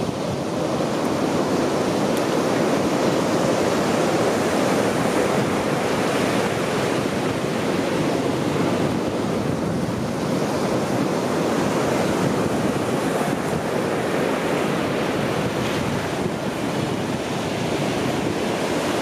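Ocean surf breaking on the beach: a steady wash of waves with only slight swells in loudness.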